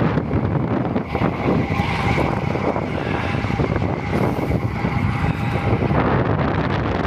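Strong wind buffeting the microphone of a camera on a moving road bike, a loud, steady rushing.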